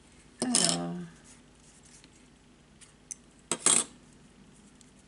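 Metal bulldog clips clacking as they are taken off and set down on a cutting mat: one clack about half a second in, then a light click and another clatter about three and a half seconds in.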